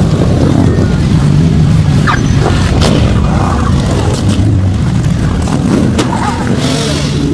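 A column of motorcycles riding past one after another, engines running.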